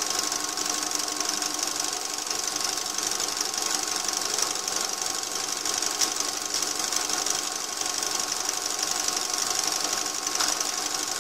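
Lathe spinning a rebuilt Lucas K2F magneto through a pulley drive on a test rig at medium speed, a steady running sound with a fast, even ticking. The magneto is turning at about twice lathe speed and firing its test plugs.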